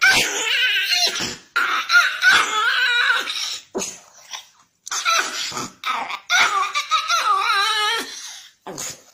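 Chihuahua growling in several high-pitched, wavering bursts, each a second or two long, while guarding a piece of raw meat.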